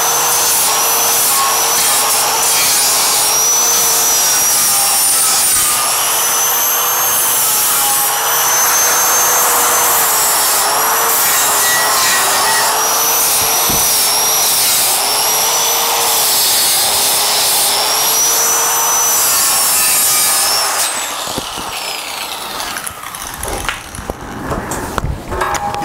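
DeWalt angle grinder with a 40-grit zirconia flap disc grinding steel, its motor whine repeatedly sagging in pitch under load and picking back up. About twenty seconds in it is lifted off and switched off, its whine falling away as the disc winds down.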